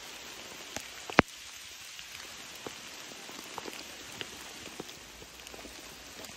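Steady rain falling on forest foliage, with scattered individual drops ticking close by and one sharp tap about a second in.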